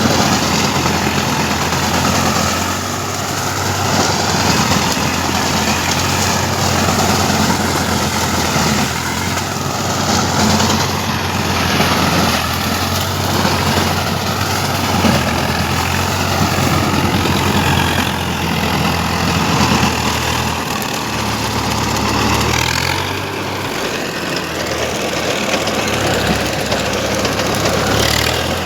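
Swaraj 744 FE tractor's three-cylinder diesel engine running steadily under a mechanical clatter, its engine note shifting about 21 seconds in.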